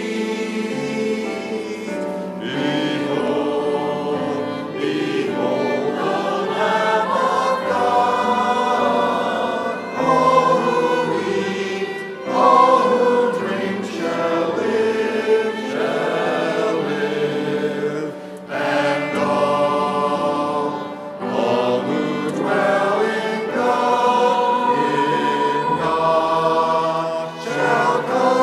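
Church choir singing a hymn in sustained phrases, with many voices together.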